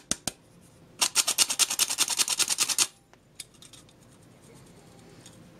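Hand-operated metal flour sifter working over a bowl: a fast run of rasping clicks, about ten a second, lasting about two seconds from about a second in, then a single click in a quieter stretch.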